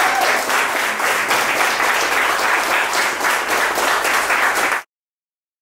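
Audience applauding, a dense patter of many hands clapping, which cuts off abruptly near the end.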